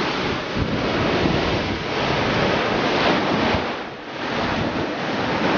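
Rough sea surf breaking and washing over shore rocks, with wind buffeting the microphone. The wash swells and eases, dipping briefly about four seconds in.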